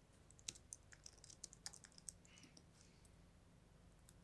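Typing on a computer keyboard: a quick, faint run of key clicks that stops about two seconds in.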